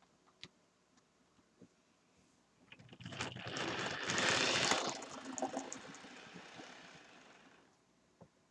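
HO-scale Rivarossi cab forward model locomotive running along the track, its motor and wheels growing louder about three seconds in and fading away near the end as it passes by.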